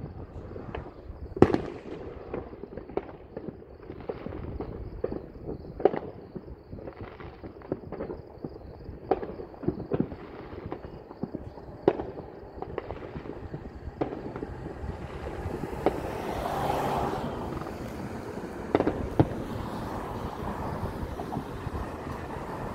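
Distant neighbourhood fireworks going off across the city: scattered bangs and crackles at irregular intervals, the loudest about a second and a half in. A little past the middle, a broad rushing noise swells up and stays under the bangs.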